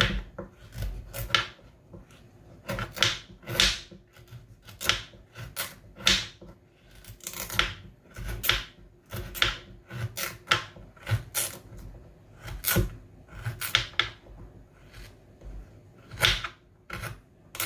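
Knife chopping hard, dried bitter kola nut into small pieces on a cutting board: a long series of sharp, irregular chops, about one or two a second.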